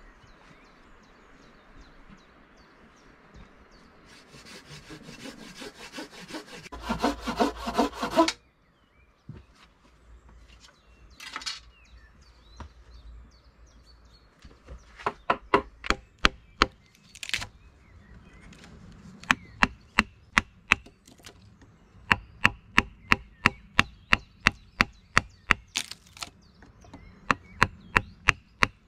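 Hand sawing through wood in quick, speeding-up strokes that stop abruptly, then a long run of sharp wooden knocks, about three a second with short pauses, as a knife is driven into a log to cut a notch and split off chips.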